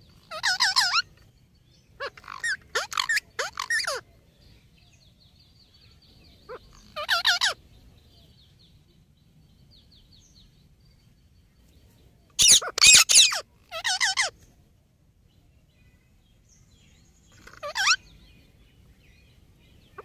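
Rose-ringed (Indian ringneck) parakeets calling in short bursts of harsh, rapidly repeated screeches, the loudest a little past the middle. Faint high twittering runs through the gaps between bursts.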